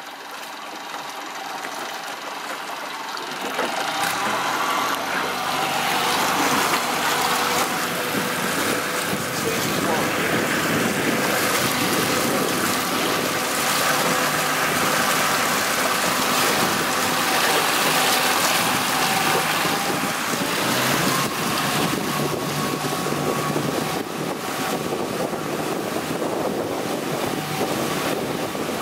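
Motorboat engine speeding up over the first few seconds, then running steadily at speed while towing an inflatable tube, with rushing water and wind buffeting the microphone.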